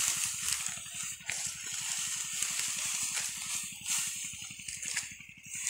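Dry cut wheat stalks rustling and crackling as they are gathered by hand into bundles. A steady, rapid low pulsing runs underneath.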